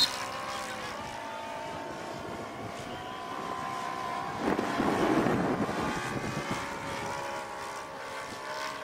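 Radio-controlled model airplane's engine and propeller running steadily in flight, with a louder, rougher swell about halfway through as it passes closer.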